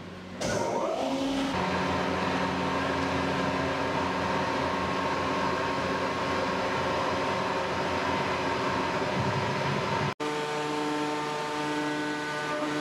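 CNC wood router starting up: the machine noise comes in abruptly a moment in, with a whine that rises over the first second, then runs steadily with several steady tones. It breaks off for an instant near the end and carries on at a different pitch.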